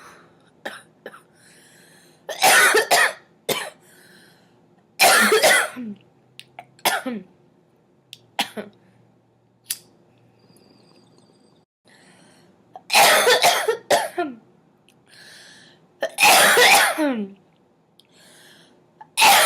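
A girl coughing in repeated fits: about four loud bouts of two or three harsh coughs each, several trailing off in a falling vocal sound, with lighter single coughs between them and another fit starting at the very end.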